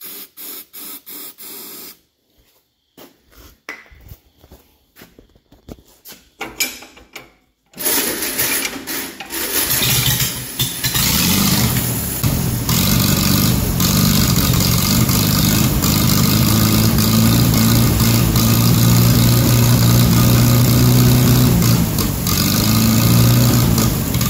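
A 1944 Farmall A's four-cylinder engine fires about eight seconds in, stumbles for a couple of seconds, then keeps running steadily. It is fed by an aerosol sprayed into its intake, because its own fuel supply is not getting through.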